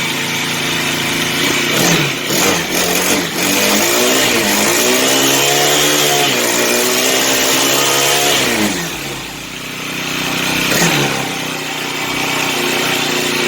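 A HOTSHOT TFR mini bike's small 40cc four-stroke engine running just after a pull start: a few quick throttle blips, then revved up and held for about four seconds, dropping back to idle, with one more short blip before settling into a steady idle.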